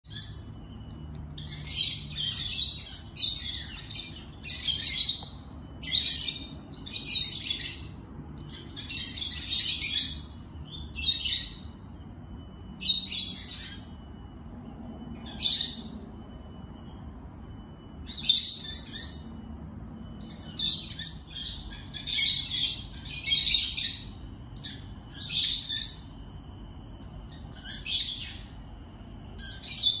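Peach-faced lovebird chirping: short, high-pitched calls repeated over and over at irregular intervals, often in quick runs of two or three.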